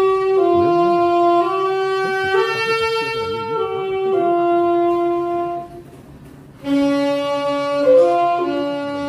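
A wind instrument, saxophone-like, playing a slow melody of held notes that step up and down. It breaks off for about a second a little past the middle, then picks up again.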